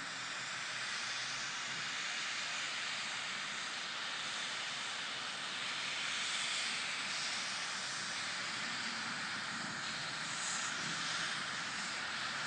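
Steam locomotive climbing a steep bank under load, a steady hiss of steam and exhaust.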